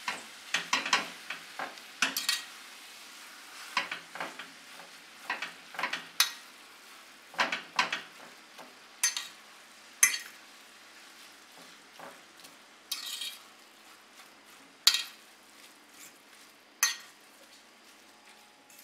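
Metal spoon scraping and knocking against a stainless steel pan at irregular moments, about once a second, as raw ground beef is worked into frying onions and peppers. A faint, steady sizzle runs underneath.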